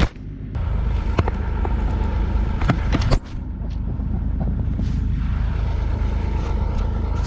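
Bobcat E42 mini excavator's diesel engine running steadily, with several sharp knocks and clanks over it, the loudest about three seconds in.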